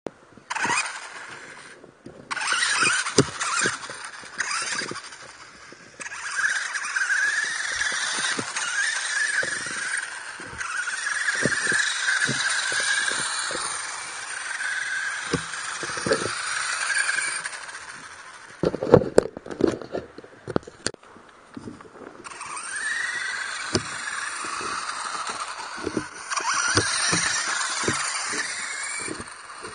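Electric drive motor and gears of a Jozen Black Beast toy 4WD RC buggy whining, rising and falling in pitch as it speeds up and slows, cutting out now and then. It knocks and rattles as it bounces over cracked concrete, with a burst of knocks about two-thirds of the way through.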